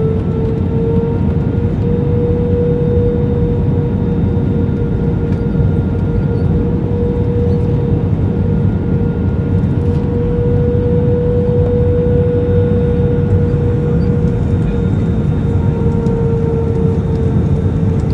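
Airbus A321 jet engines and airflow heard from inside the cabin: a loud, steady rumble with a constant whining hum, which rises slightly in pitch about a second in.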